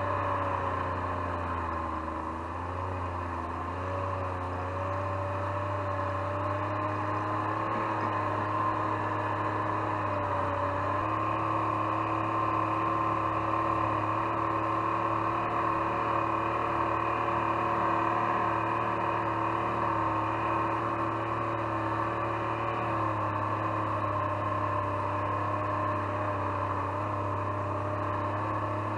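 Snowmobile engine running at a steady cruising speed while pulling a homemade drag trail groomer over snow. Its pitch wavers briefly a few seconds in and steps up slightly partway through, then holds even.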